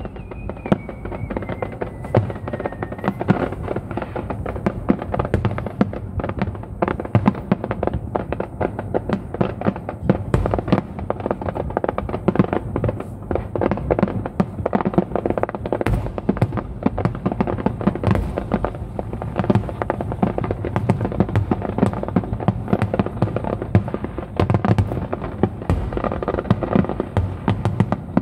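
Dense, continuous barrage of aerial firework shells bursting and crackling, the many-shell finale of a fireworks display. A falling whistle runs through the first few seconds.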